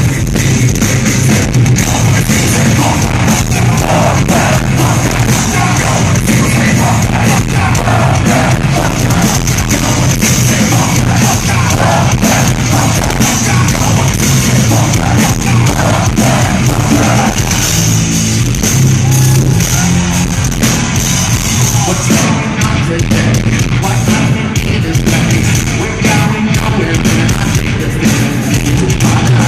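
Live metal band playing at full volume, with heavy guitars, drums and shouted vocals, recorded on a phone's microphone that is overloaded and distorted.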